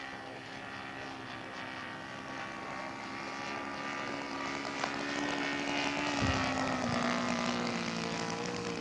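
Radio-controlled scale model airplane's engine and propeller on landing approach, growing louder as it comes closer. About six seconds in its pitch drops as it passes or is throttled back, then it runs on at a steady lower speed.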